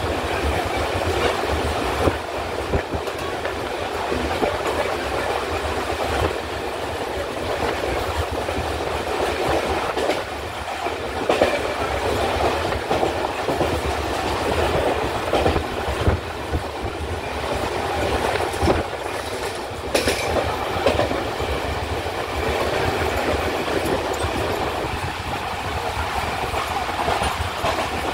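Mumbai suburban local electric train heard from inside the carriage while running at speed: a steady rumble of wheels on the rails with a few sharp clacks from the track.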